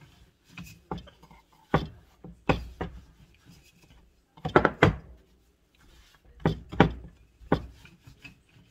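Wooden rolling pin rolling out dough on a floured wooden board, with a series of irregular wooden knocks as the pin strikes the board and faint rubbing between them.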